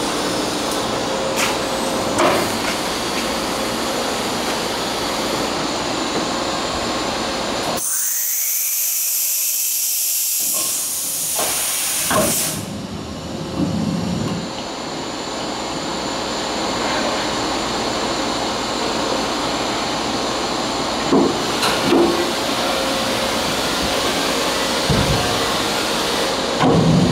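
Daewoo ACE-H80 horizontal machining center's automatic pallet changer cycling: steady machine running noise with a few clunks as the pallets are swapped, and a loud blast of hissing air lasting about four seconds, starting about a third of the way in.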